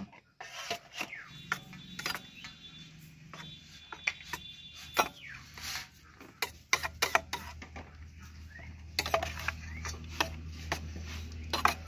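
Stainless-steel spatula stirring and scooping soft steamed sponge gourd in a steel bowl: scattered clinks and scrapes of metal on metal. A steady low hum comes in about seven seconds in.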